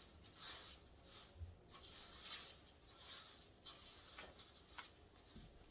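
Near silence: faint rustling, with a couple of soft clicks near the end.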